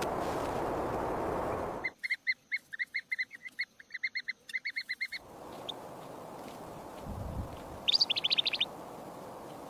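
Bird chirping: a fast run of even, repeated chirps about two seconds in, lasting about three seconds. Near the end comes a short, quicker and higher trill. Both sit over a steady noisy background.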